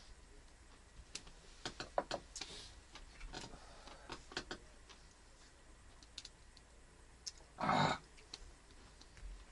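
Scattered light clicks and taps of tableware: cups, spoons and bowls knocking during a meal. A short, loud rush of noise comes near the end.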